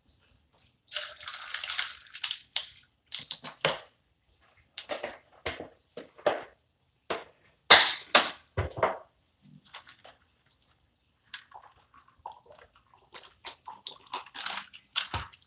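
A drink poured from a plastic bottle into a plastic cup about a second in, then a string of sharp clicks and knocks as the bottle and cup are handled and set down, the loudest about halfway through. Near the end, small swallowing sounds as the drink is gulped from the cup.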